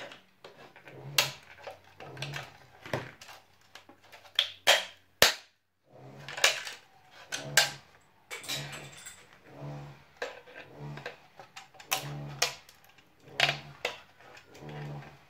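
Flush cutters snipping and snapping off 3D-printed plastic support material: sharp, irregular clicks and cracks. Under them a neighbour's power drill comes through as a low hum in short bursts about once a second.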